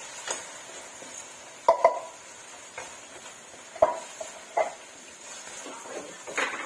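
Spatula stirring and scraping mushrooms, onion and ground beef around a metal wok, knocking sharply against the pan at irregular moments, twice in quick succession about two seconds in.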